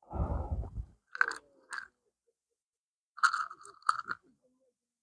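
Short crunching, rustling noises close to the microphone, in separate bursts: a longer one at the start, two brief ones after about a second, and a longer cluster about three seconds in.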